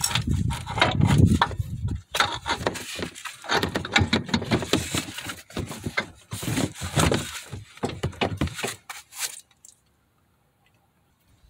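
Irregular clattering knocks and scrapes of hands working a new CV axle's outer splined end through the steering knuckle into the wheel hub. The sound stops about two seconds before the end.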